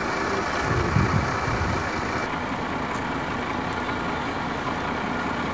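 Steady outdoor background noise, a constant rumble and hiss, with a few low bumps about a second in.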